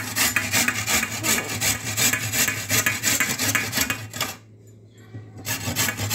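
Fresh amla (Indian gooseberry) rubbed back and forth over a round stainless-steel grater: a rasping scrape about three or four strokes a second, stopping for about a second past the middle and then starting again.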